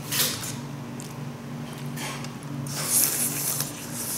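Close mouth and breath sounds of someone eating a hot spicy braised chicken wing held in the fingers: a few short hissy bursts over a steady low hum.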